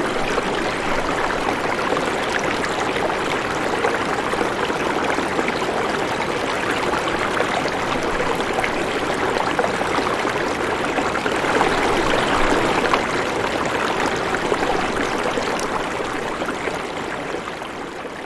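Steady rushing water noise, fading out over the last couple of seconds.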